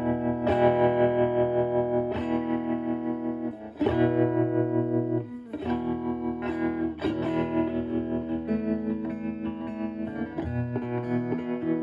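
Clean electric guitar chords from a Stratocaster with HSH pickups, played through a Marshall Valvestate amp's clean channel and a Joyo JF-09 analog optical tremolo pedal. The pedal is set to low intensity and a moderate rate, so the volume pulses gently and evenly a few times a second. A new chord is struck every second or two.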